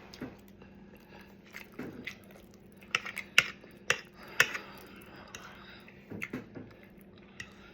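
Close-up eating sounds: chewing with wet mouth clicks and smacks in scattered bursts, busiest around the middle.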